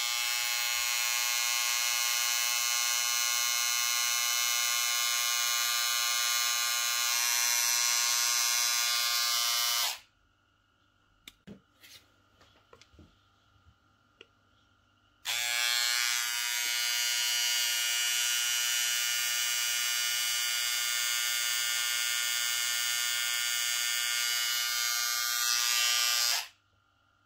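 Wahl Cordless Detailer hair trimmer switched on and running at a steady full-speed buzz for about ten seconds, then cut off. A few small clicks follow, then it runs again at the same steady buzz for about eleven seconds before being switched off near the end, as it is run for a speed (RPM) test.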